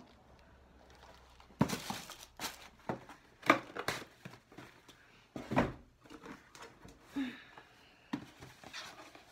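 Irregular knocks and thumps with some rustling as shoes and their packaging are handled and set down.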